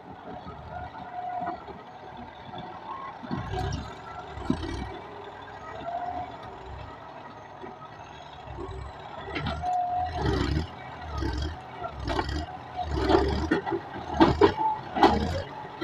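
Tractor running in a field while plowing, with a series of loud, short thumps coming about once or twice a second in the second half.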